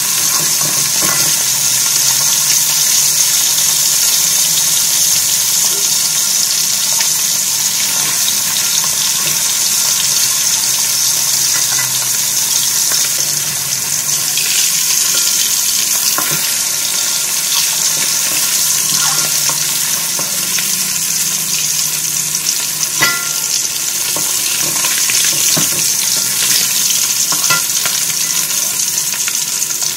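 Ikan kerisi (threadfin bream) deep-frying in hot oil in a metal wok over high heat for a crisp finish: a steady sizzle, broken by a few sharp pops and clinks as the slotted metal ladle turns the fish.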